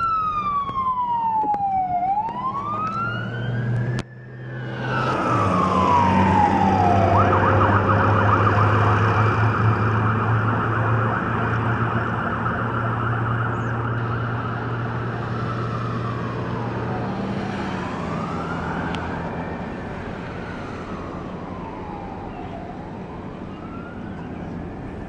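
Fire apparatus electronic siren wailing in slow rising and falling sweeps over a low engine hum. About seven seconds in it switches to a rapid yelp for a few seconds, then goes back to the wail. It is loudest around six to ten seconds in and then gradually fades.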